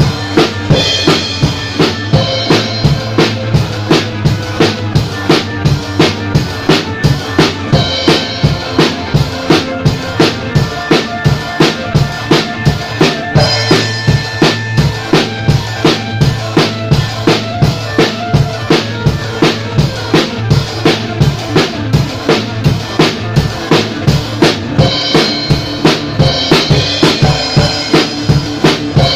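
Acoustic drum kit played with sticks in a fast, steady rock beat, bass drum and snare driving it, over a rock backing track.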